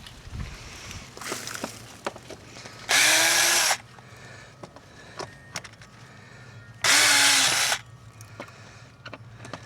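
Power drill run in two short bursts about four seconds apart, each under a second long, backing screws out of a garden planter tower.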